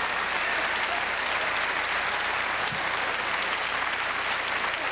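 Large theatre audience applauding and laughing, a steady, dense clapping that carries on through the pause after a punchline.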